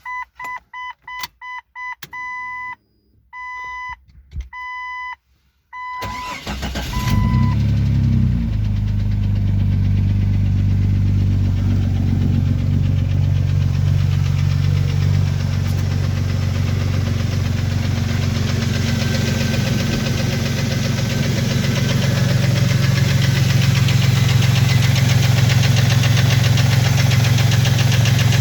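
A repeating electronic warning chime beeps for the first few seconds. About six seconds in, the 2001 Jeep Cherokee XJ's 4.0 L inline-six cranks and starts, then idles steadily with a knock from piston slap caused by a broken piston skirt.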